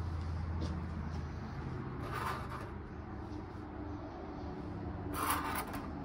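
Hand handling a small metal-and-glass junk robot on a workbench: two brief rubbing scrapes, about two seconds in and again just after five seconds, over a steady low hum.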